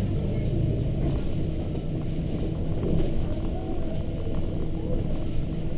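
Volvo B7RLE single-deck bus's seven-litre six-cylinder diesel engine running steadily as the bus drives along, heard from inside the front of the cabin, with road rumble.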